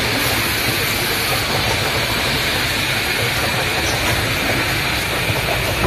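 Production-line machinery running: a steady mechanical hum with hiss that does not change.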